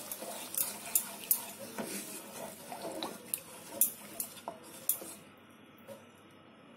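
Wooden spatula stirring a thin, watery spice gravy in a karai, scraping and clicking irregularly against the pan as the liquid swirls. The stirring stops about five seconds in, leaving only a faint background.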